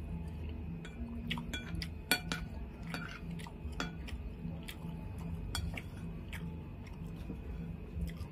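Metal spoon clinking and scraping against a ceramic bowl as rice and beef-skin crackers (rambak) are scooped up, a series of short sharp clicks, along with close-up chewing and lip-smacking, over a faint low hum.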